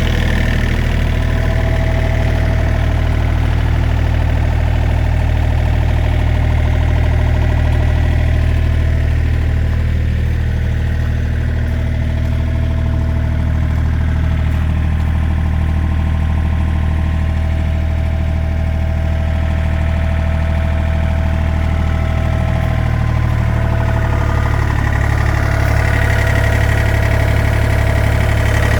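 The small Yanmar diesel of a 2006 John Deere 35D mini excavator idling steadily after a cold start.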